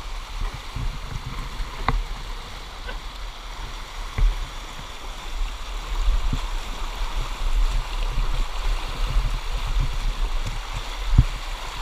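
Creek water running with a steady rushing and gurgling, broken by irregular low thumps, the loudest about four seconds in and near the end.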